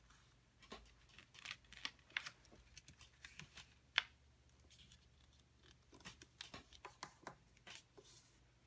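Soft rustling and scraping of paper pieces being folded back along their tabs and pressed flat by hand on a wooden table, with one sharp tap about four seconds in.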